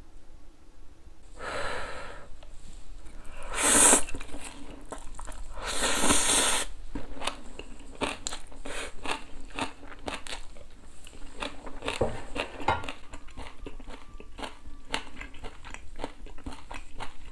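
A person eating Buldak spicy stir-fried noodles with a dumpling, close to a clip-on microphone. There are three loud slurps in the first seven seconds, then steady chewing with many small wet clicks.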